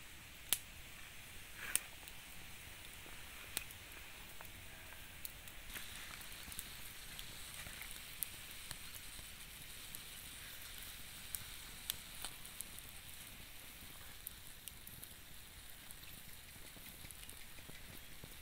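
Small wood fire crackling, with scattered sharp pops over a steady sizzling hiss, as freshwater mussels roast in their shells on a rack above the flames.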